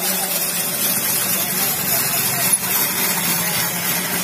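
Hand-cranked cast-iron ice shaving machine grating a block of ice into crushed ice, a steady coarse scraping hiss. A low steady hum runs underneath.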